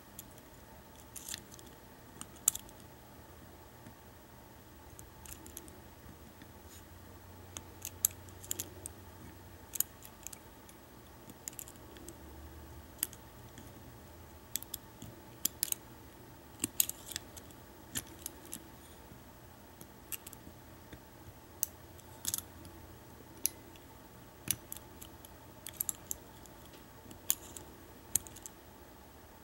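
A lock pick and tension wrench working inside an American Lock 1100 padlock: irregular small metallic clicks and scratches as the pick moves against the pins.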